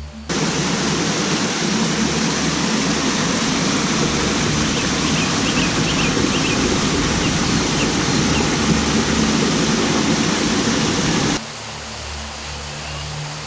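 Waterfall: a loud, steady rush of falling water that cuts in sharply at the start and cuts off about two seconds before the end, when quieter background music with low tones takes over.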